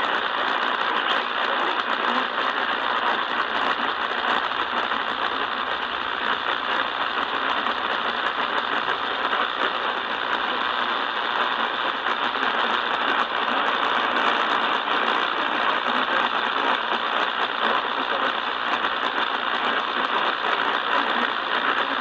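Steady hiss of radio static from an Eton portable radio's small speaker, with no voice coming through.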